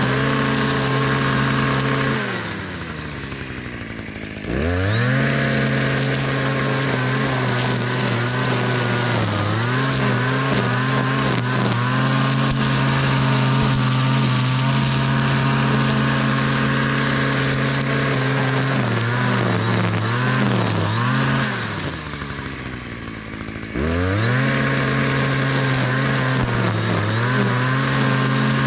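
Stihl MM56CE multi-tool's small two-stroke engine driving an FS-MM string trimmer head, running at high speed while cutting grass. Twice the revs fall away to idle for about two seconds and then climb back up as the throttle is released and squeezed again.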